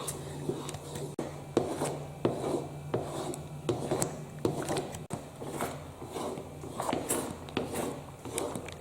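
A spatula scraping and stirring a thick dodol mixture in a pan, in repeated strokes about every half second, over a low steady hum.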